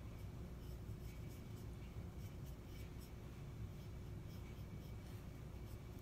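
Faint, irregular scratching of a number two pencil traced firmly over a paper printout lying on a soft clay slab, pressing the design through into the clay.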